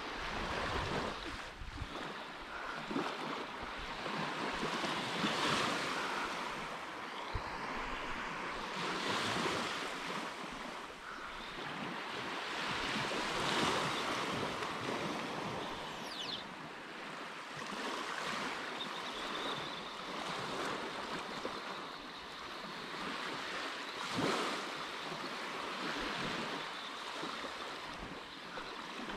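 Small waves lapping and washing up on a sandy beach, swelling and fading every few seconds, with some wind on the microphone.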